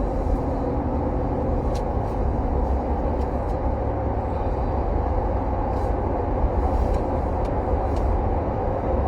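Steady low road and engine rumble inside a car's cabin, with a few faint clicks.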